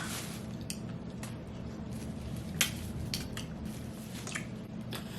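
Hands working through a seafood meal: scattered sharp clicks and cracks of shells and utensils, the loudest about two and a half seconds in, over a low steady room hum.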